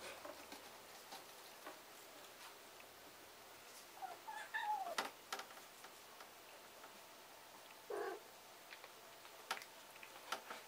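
A cat meowing: one drawn-out call that falls in pitch about four to five seconds in, and a short call about eight seconds in, with faint light clicks and taps between them.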